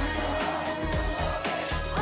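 K-pop girl group singing an upbeat pop song over a backing track with a steady beat.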